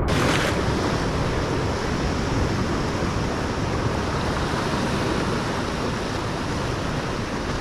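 Rough ocean surf washing against rock ledges, a steady rush of broken water with wind on the microphone, briefly louder at the very start.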